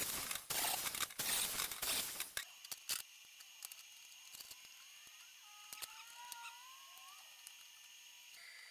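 Steel tube and locking-pliers clamps being handled on a sheet-steel welding table, with scraping and rustling for the first two and a half seconds or so. After that it is mostly quiet, with a few sharp metal clicks as the clamps are set.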